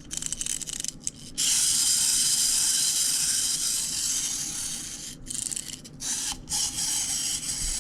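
Small plastic wind-up toy: the winding key clicks during the first second or so. Then its clockwork spring motor buzzes with a fast rasping whirr for about four seconds as the feet move. It stops and runs again in shorter stretches near the end.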